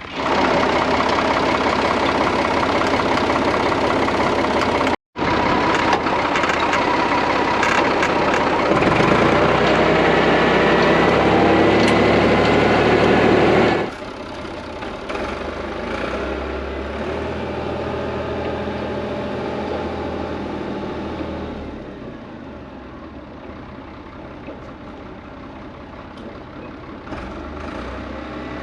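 Truck engine running close and loud, its note climbing for a few seconds as it pulls away under power. It then drops suddenly to a quieter, steady engine run that falls off further later on.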